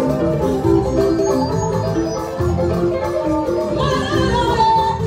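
Live band music: a fast melodic line of short repeated struck notes over a bass and drum beat. A voice comes in near the end.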